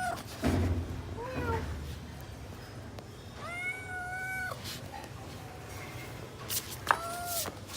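Kitten meowing three times: a short call, a long drawn-out meow of about a second, then a shorter one near the end. These are the calls of a hungry kitten looking for its mother. A low thump comes about half a second in.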